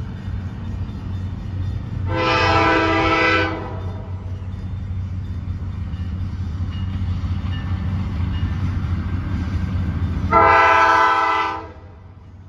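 Locomotive air horn sounding two long blasts of several pitches at once, each about a second and a half, some eight seconds apart, over the steady low rumble of the approaching train.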